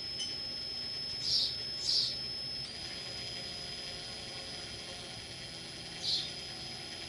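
Drill motor running slowly: a steady low hum under a thin high whine. There are short high chirps about a second in, at two seconds, and again near the end.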